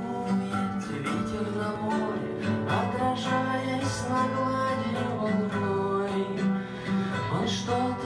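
Acoustic guitar played solo, its plucked chords ringing on steadily.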